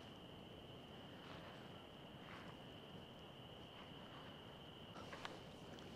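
Near silence: quiet evening outdoor ambience with a faint, steady high-pitched trill throughout and a few faint brief chirps.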